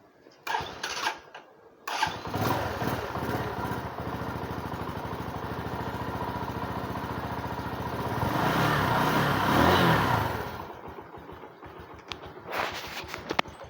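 Bajaj Boxer BM 150's single-cylinder four-stroke engine starting: a few brief noises, then it catches about two seconds in and idles steadily. It revs up for a couple of seconds and then falls away, leaving only scattered clicks near the end.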